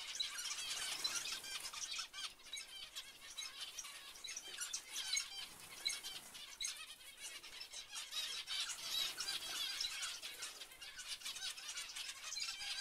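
A flock of zebra finches calling, with many short, high calls overlapping without a break.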